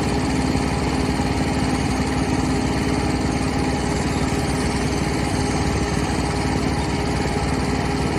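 An engine running steadily at idle, with an even, unchanging low throb.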